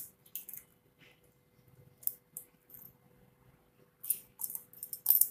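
Chicken pieces in a wet egg-and-cornflour batter being mixed by hand in a steel bowl: scattered short squelches and light clinks against the metal, coming thicker near the end.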